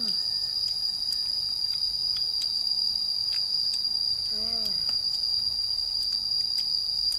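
Insects chirring in one steady, high-pitched drone, with a few faint ticks.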